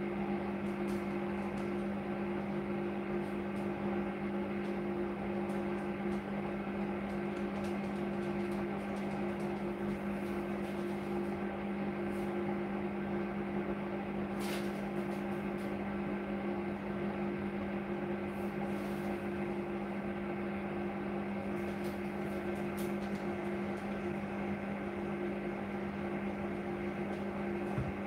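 Hotpoint NSWR843C washing machine giving a steady electrical hum while the drum stands still, with a soft click near the end as the drum starts to turn.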